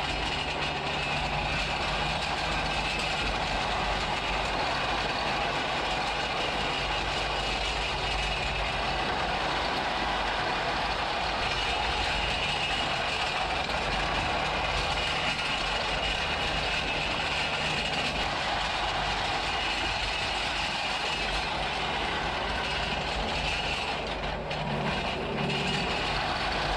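Bobcat T650 compact track loader's diesel engine running steadily.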